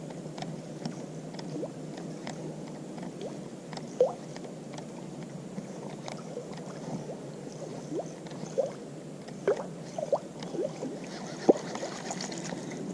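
Water lapping and dripping: a steady low wash with scattered short plinks and ticks, a few of them louder.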